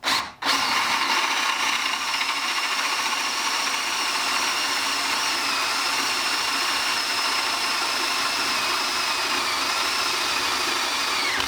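Electric power tool motor running steadily with a high whine, its pitch dropping near the end as it winds down.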